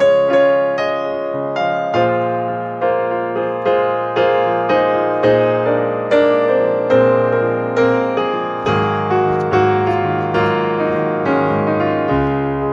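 Background piano music: single notes and chords struck about twice a second, each ringing and fading.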